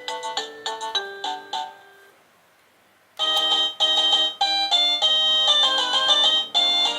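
INTENDVISION wireless doorbell receiver playing its electronic chime melodies. A quick tune of short notes ends about two seconds in, and after a second's pause a different, fuller melody starts.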